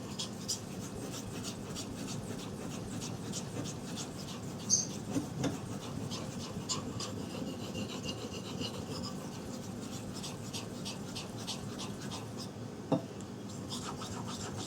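Bark River Fox River knife blade of 3V steel sliding in repeated strokes over a water stone: a steady soft rasping scrape, as the convex edge is finished at a slightly higher angle.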